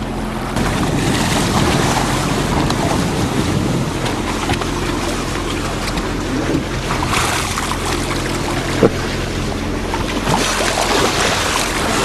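A sailboat's engine running steadily under way, with water rushing along the hull and wind buffeting the microphone; a single sharp knock about nine seconds in.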